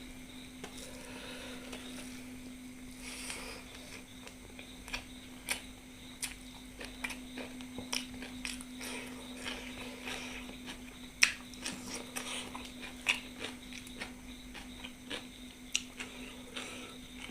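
Mukbang eating sounds: scattered, irregular clicks and soft squishes of food being taken from a plate and chewed, with one sharper click about eleven seconds in. A steady low hum runs underneath.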